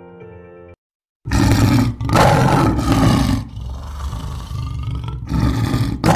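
Soft background music ends abruptly, and after a half-second gap a loud, rough roar sound effect comes in, swelling in several surges.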